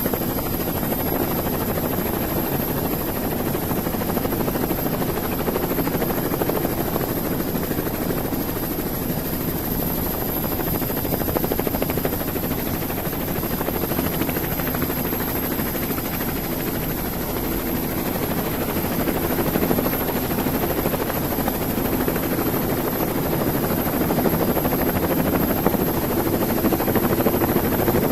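Helicopter engine and rotor noise, steady and loud, with a slight swell near the end.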